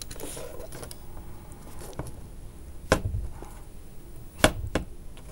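A few small, sharp clicks and taps from handling the parts of a model sailboat (a thin wooden boom stick, the cloth sail and its cord) on a work table. The loudest come about three seconds in and again about a second and a half later.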